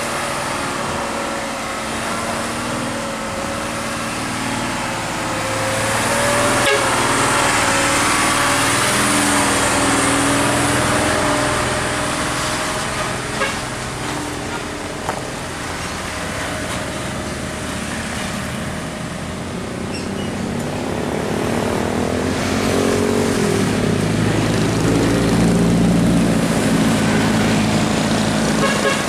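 Road traffic passing: vehicle engines running steadily, getting louder twice as vehicles go by, about a quarter of the way in and again near the end.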